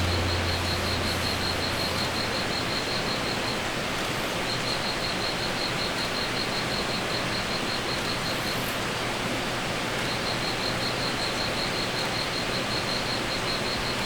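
Steady, even rushing outdoor noise, with a small insect chirping in quick even pulses, about four a second, that stops and starts again twice.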